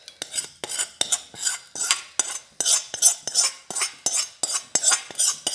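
A steel spoon scraping cooked chickpeas out of a metal pan into a glass bowl, in a quick run of scrapes, about three or four a second.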